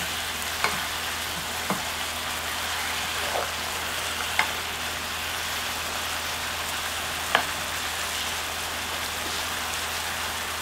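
Tofu and enoki mushrooms braising in a spicy soy sauce, sizzling and bubbling steadily in the pan as the sauce reduces. A few light clicks of a wooden spoon against the pan.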